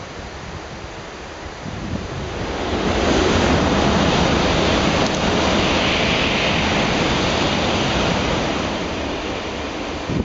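N700-series Shinkansen passing at speed through heavy rain: a rush of air and thrown-up spray that builds about two seconds in, stays loud for several seconds and eases off near the end, over the steady hiss of the downpour.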